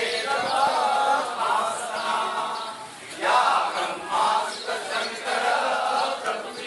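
A group of voices chanting together in a devotional chant, with long held notes that rise and fall; the chant swells louder about three seconds in.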